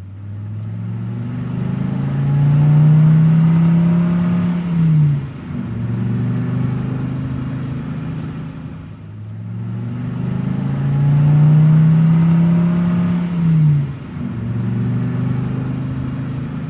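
Car engine sound effect: the engine accelerates with its pitch rising, holds, then drops as if shifting gear, and runs on steadily. The same pass repeats a second time after a brief dip, as a loop.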